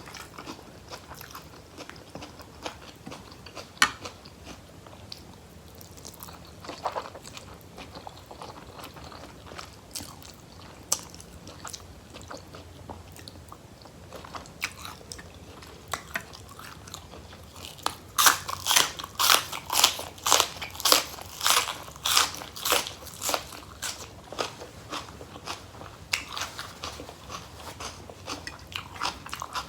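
A person chewing and crunching food close to the microphone, with sharp crunches scattered through and a run of loud crunchy bites about two a second in the second half.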